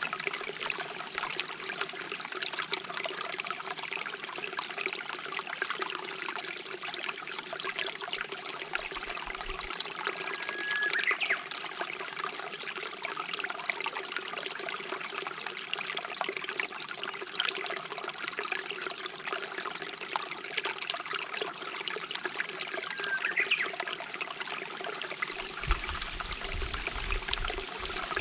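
Stream trickling and babbling steadily, with a Japanese bush warbler (uguisu) calling twice, each a held whistle that breaks into a quick rising flourish, about twelve seconds apart.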